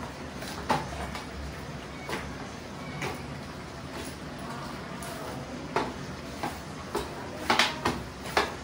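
Kitchen utensils knocking and clanking against cookware: irregular sharp knocks, several in quick succession near the end, over a steady low hiss.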